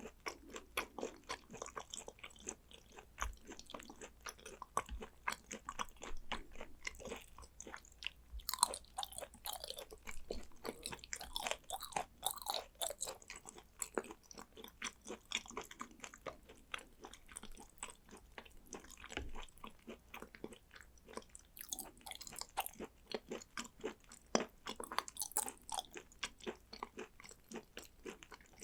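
Close-miked chewing of raw Korean beef and sea urchin roe: a steady run of wet mouth clicks and smacks, several a second.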